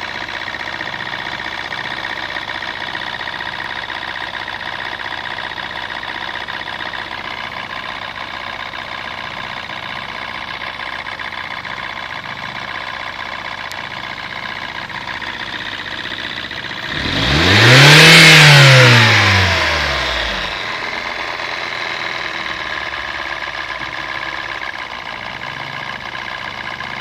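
Mazda 626 engine idling with a steady whine of several high tones, the noise suspected to come from a bad timing belt tensioner or tensioner spring. About two-thirds of the way through it is revved once, rising in pitch and falling back to idle, the loudest moment.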